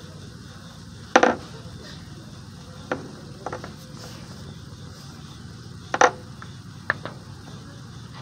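A burning pine-sap and charcoal fire starter crackling, with about five scattered sharp pops, the loudest about a second in and about six seconds in, over a steady low background hum.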